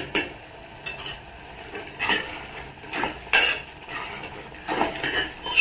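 Steel spoon stirring and scraping a thick tomato-onion masala in an aluminium pressure-cooker pot, with a clink of spoon on metal roughly once a second.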